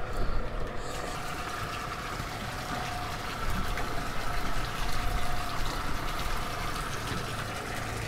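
A boat's bilge pump running, its discharge splashing out of the hull outlet into the water, with a steady whine underneath.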